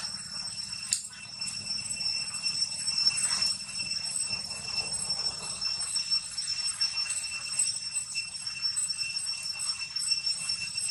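Steady high-pitched drone in a few tones that pulse slightly, over a low rumble, with a sharp click about a second in.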